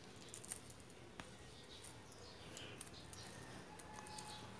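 Faint crinkling and scattered small clicks of clear plastic shrink-wrap being picked and pulled at with fingers while getting a photobook out of it.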